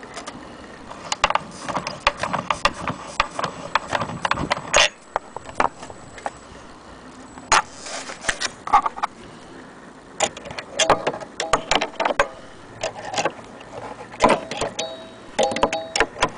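Irregular clicks, knocks and rattles of an Edison Bell wind-up gramophone's metal parts being handled, the tone arm and crank moving, with a few short squeaks in the second half.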